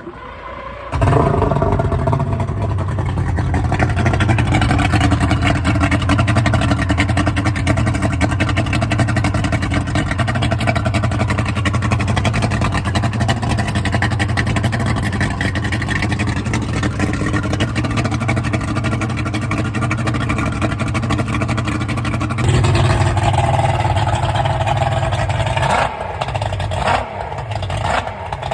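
Yamaha 225 outboard engine catching about a second in and running steadily on its first start with a new cone lower unit, the lower unit sitting in a water bucket. The engine note rises around three-quarters of the way through, then swings up and down near the end.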